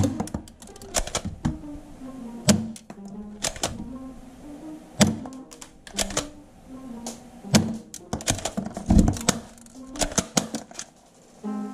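Sharp plastic clicks and clacks, irregular and some loud, as a plastic toy submachine gun is handled and worked, over background music with a slow stepping melody.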